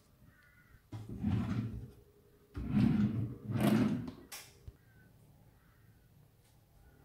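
Kitchen drawers sliding open and shut on their runners, three slides in quick succession, followed by a sharp click.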